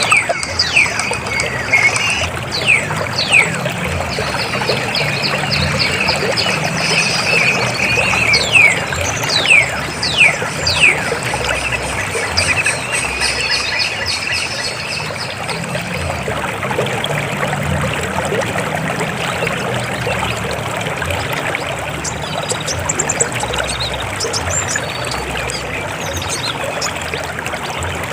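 River water flowing steadily over rocks. Over it, a bird gives short, quickly falling whistled calls, repeated many times through the first ten seconds or so.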